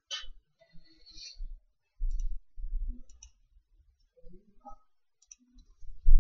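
A few sharp, isolated clicks of carom billiard balls and cue, with low thumps between them and a loud strike right at the end.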